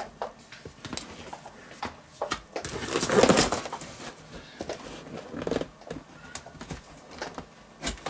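A kitchen knife slitting the packing tape on a large cardboard box, with hands rubbing over the box: a few short bursts of scraping, the loudest about three seconds in.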